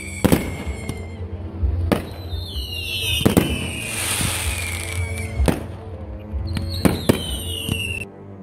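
Fireworks display: about seven sharp bangs of shells bursting, with several shrill whistles gliding down in pitch over one to two seconds. It cuts off abruptly near the end.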